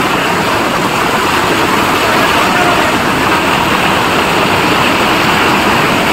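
Floodwater rushing over a road, a loud steady rushing noise without pauses.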